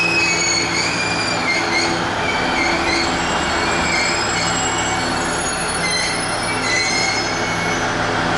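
Train wheels squealing against the rails as a train rolls slowly through a station: several high, wavering whines over a steady low hum, thinning out near the end.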